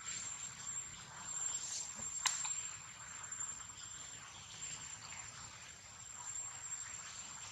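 Faint outdoor ambience: a steady high-pitched whine over soft rustling, with one sharp click a little over two seconds in.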